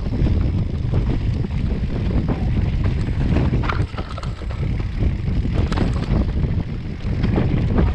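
Wind buffeting the microphone of a handlebar-mounted camera on a mountain bike descending a rough dirt and stone track, with the bike and tyres rattling over the ground in scattered sharp clicks and knocks.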